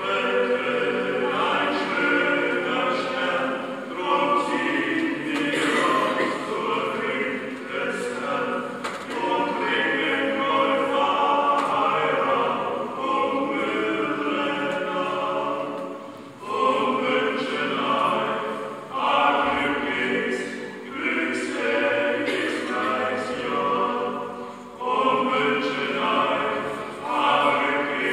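A small group of Sternsinger (Epiphany star singers) singing a carol together in phrases, with short breaks between phrases about halfway through and again near the end, in a church.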